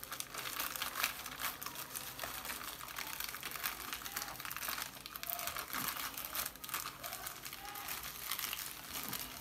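Plastic courier mailer bag being crinkled and pulled at by hand to open it: continuous crackling rustles with many small sharp crackles. The packing is tough to open.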